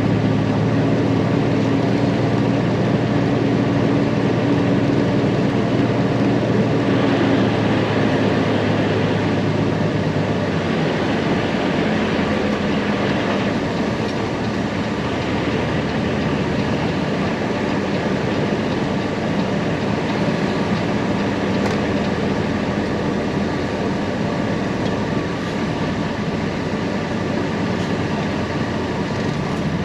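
Heavy engine or machinery running steadily, with a low hum whose pitch drops about ten seconds in.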